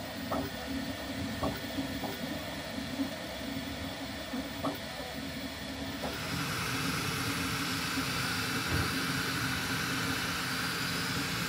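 Bambu Lab 3D printer running: a steady mechanical hum with a few light clicks in the first five seconds. About six seconds in, a louder, even hiss joins and holds.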